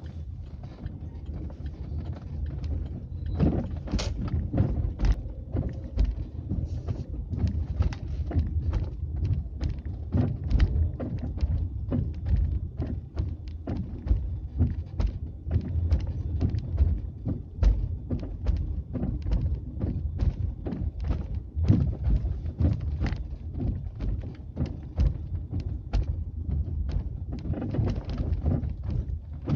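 Volkswagen Polo sedan steering rack knocking: irregular sharp knocks, several a second, over a steady low rumble. The knock is the sign of a worn steering rack bushing, which the owner replaced.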